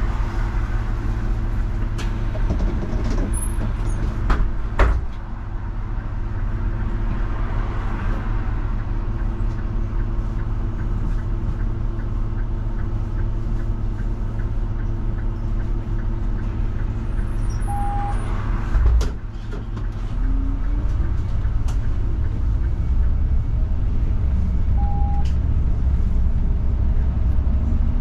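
Mercedes-Benz Citaro CNG city bus's gas engine idling with a steady low hum while the bus stands, broken by a thump about five seconds in and another near nineteen seconds. After the second thump the engine note climbs and grows louder as the bus pulls away. Two short beeps sound, one past the middle and one later.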